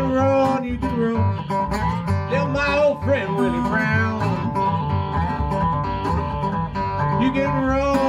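Acoustic Delta blues played as an instrumental: a harmonica carries bending notes over an acoustic guitar and the low plucked notes of a washtub bass.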